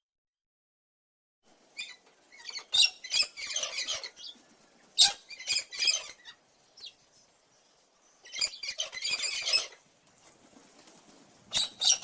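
Cockatoo giving harsh, raspy calls in four bursts of one to two seconds each, starting after about a second and a half of silence.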